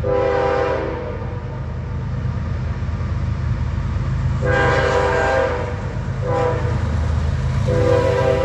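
Norfolk Southern locomotive horn sounding several blasts of stacked notes over the steady rumble of the train passing at speed. One blast ends about a second in, a long blast comes about halfway through with a short one right after, and another long blast starts near the end.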